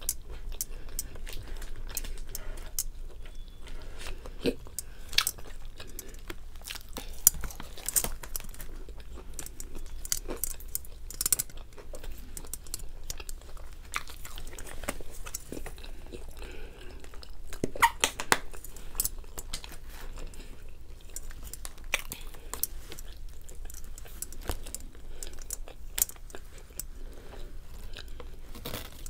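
Close-miked chewing of a Burger King Nightmare burger and fries: irregular wet mouth clicks and soft crunches, with a few louder crunches now and then.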